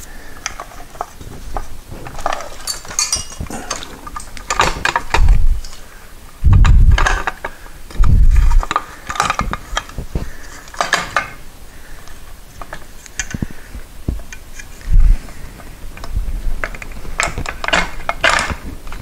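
Metal hand tools clicking and clinking against motorcycle fork parts as a fork pinch bolt is tightened, with several dull, heavy thumps.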